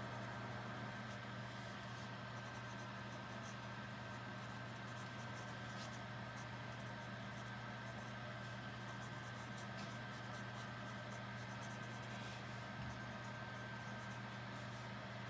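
Graphite pencil scratching on sketchbook paper in many short, quick strokes, over a steady low hum.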